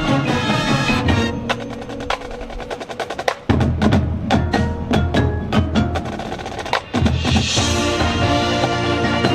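High school marching band in a percussion-led passage: a run of quick, sharp drum and mallet strikes, then a low held bass under more strikes from about halfway through, with the band's sustained chords coming back in near the end.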